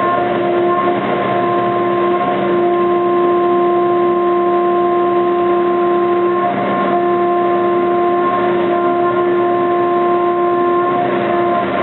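CNC milling machine cutting aluminium at 2 mm depth of cut and high table feed: a loud steady whine in several pitches from the spinning cutter, with a brief rush of cutting noise a few times.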